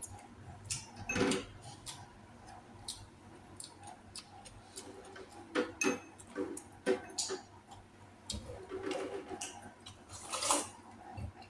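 Eating sounds: scattered clicks and taps of utensils against bowls and dishes, with short bursts of chewing and mouth sounds in between. The busiest moments are about a second in, in the middle, and near the end.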